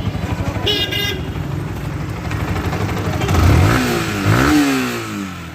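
Yamaha R15's single-cylinder four-stroke engine idling, then blipped twice, rising in pitch and dropping back. It runs without the abnormal noise it made when hot: after the repair the mechanic calls it completely fine.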